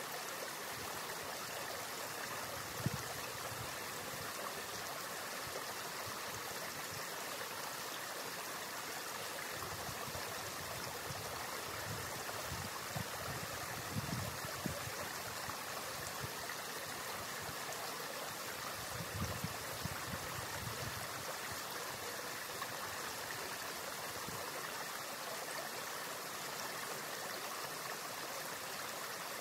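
Stream water running steadily, with a few dull low thumps about three seconds in and again in the middle of the stretch.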